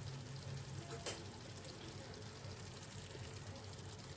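Pot of jollof rice simmering in its tomato and stock liquid under a glass lid: a faint steady sizzle over a low hum, with one sharp click about a second in.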